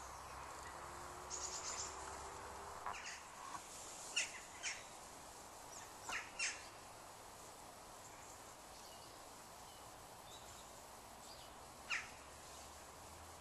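Birds giving short, high chirping calls: a cluster of them in the first half and a single one near the end, over a faint steady outdoor hiss.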